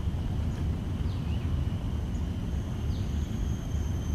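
Outdoor background noise: a steady low rumble, with a faint steady high tone and a few short falling chirps spaced a second or more apart.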